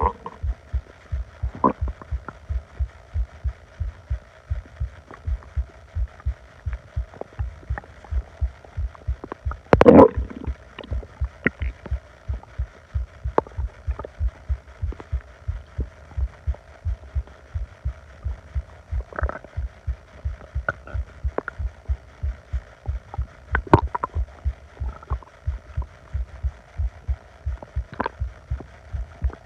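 Growling of an upset stomach: a steady low pulsing a few times a second, with scattered gurgles and rumbles over it, the loudest about ten seconds in and smaller ones about two thirds of the way through and near the end.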